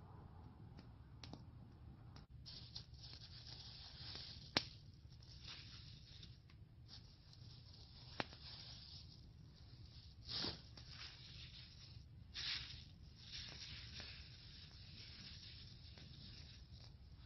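Faint, irregular scraping and rustling, with two sharp clicks, one at about four and a half seconds and one at about eight seconds.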